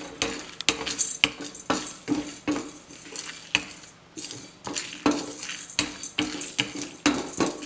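Wooden spatula stirring and scraping lentils and spices roasting in a stainless steel pan. The grains rattle against the metal in irregular scrapes and knocks.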